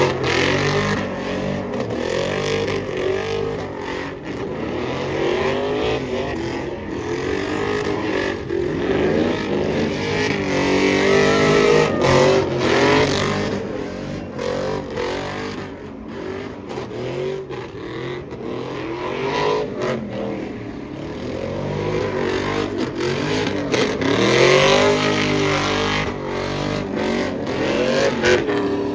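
Lowered Chevrolet Silverado pickup doing donuts: its engine revs up and down again and again at high rpm while the rear tyres spin on the pavement.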